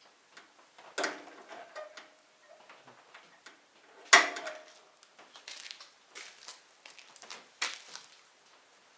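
Handling clatter from a tool box and tools: small clicks and three louder knocks, the loudest about four seconds in, ringing briefly.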